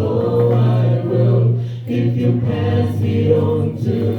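Gospel choir singing with long held notes.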